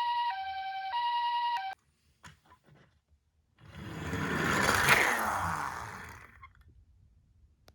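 Electronic two-tone ambulance siren alternating high and low, the hi-lo "pee-poh" pattern of Japanese ambulances, which cuts off suddenly about two seconds in. A few faint clicks follow, then a rushing noise swells up and fades away over about three seconds.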